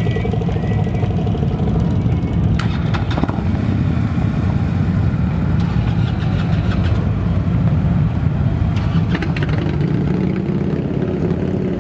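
A motor vehicle engine running steadily at low revs, with a fine regular pulse in its low sound. A few light clicks come about three seconds and nine seconds in.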